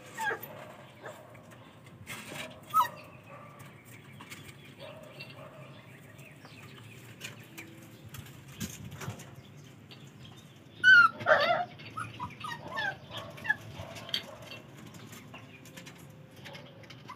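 Four-week-old Belgian Malinois puppies whining and yelping in short, high, bending cries: a few near the start, then a cluster of them about eleven seconds in. Scattered light clicks sound between the cries.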